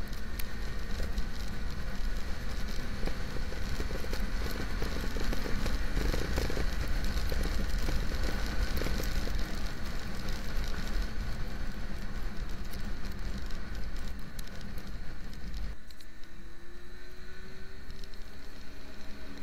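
Wind rushing and buffeting over the camera's microphone on a motorcycle riding at highway speed in the rain, with the engine running underneath. Near the end the wind noise drops sharply and a faint rising tone comes through.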